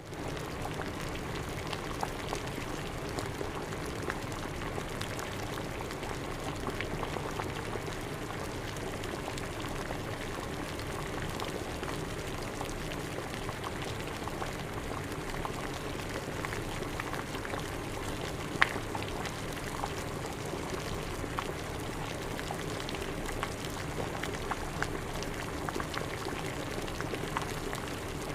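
Water at a boil, bubbling steadily with many small scattered pops, and one sharper pop about two-thirds of the way through.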